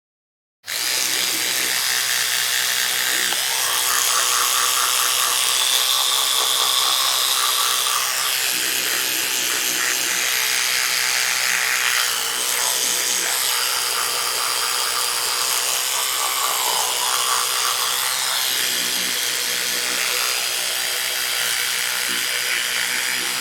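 Electric toothbrush buzzing while brushing teeth: a steady motor hum under a scrubbing sound that keeps changing in tone as the brush moves around the mouth. It starts about half a second in.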